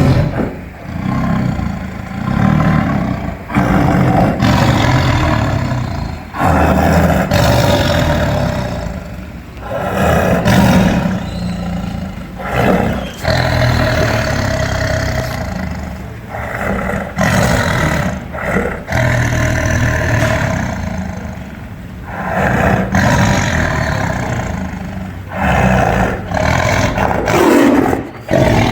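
Lion roaring, a long run of loud, deep roars one after another, broken by abrupt cuts between recordings.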